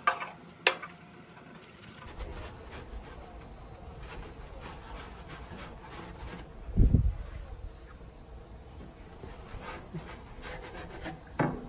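Hand scraper and paper towel rubbing and scraping grease off the inside of a gas grill's cookbox, in short irregular strokes with a couple of sharp clicks near the start. A dull low bump about seven seconds in is the loudest moment.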